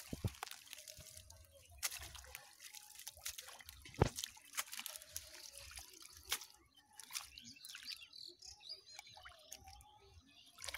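Water dripping and trickling as wet water hyacinth and a mesh fishing net are lifted and handled, with a few sharp knocks, the loudest about four seconds in.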